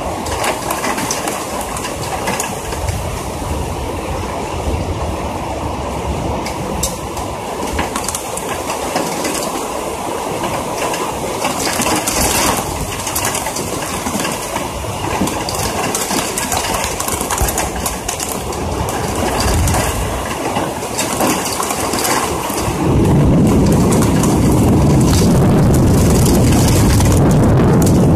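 Rain drumming hard on a metal window ledge and on the body of the phone, a dense clatter of drop hits. About two-thirds of the way through, the sound steps up louder with a deep rumble underneath.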